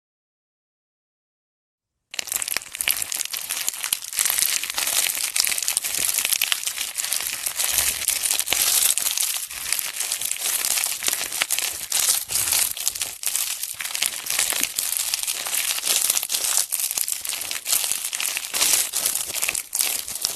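Slime being squeezed and kneaded by hand close to the microphone, making a dense, continuous run of fine crackles and pops. It starts abruptly about two seconds in, after dead silence.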